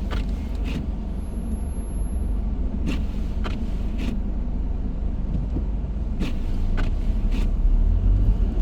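Car driving, heard from inside the cabin: a steady low engine and road rumble, with a few light clicks and knocks here and there.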